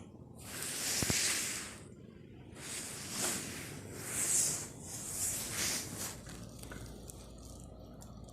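Rustling, hissing rubbing noise right on the microphone, in four swells that rise and fade about once a second, then dies down for the last couple of seconds.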